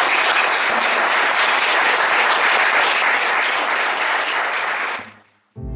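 An audience applauding steadily. The applause is cut off, fading out quickly about five seconds in.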